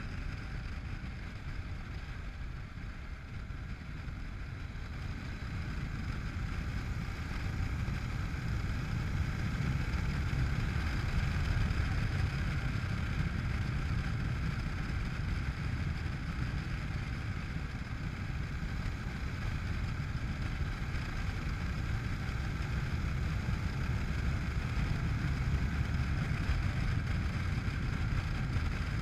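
Honda NC700X motorcycle's parallel-twin engine running at a steady road speed, mixed with wind and road noise as one continuous drone that grows a little louder over the first several seconds.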